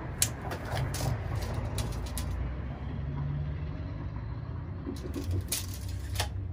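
Copper refrigeration tubing clinking and knocking as it is handled and fitted, a few sharp knocks near the start and again near the end, over a steady low machinery rumble.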